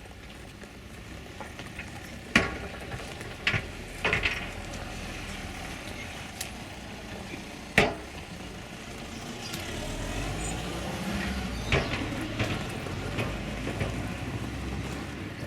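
Outdoor street background noise with a few sharp knocks scattered through it and a vehicle's low rumble building up in the second half.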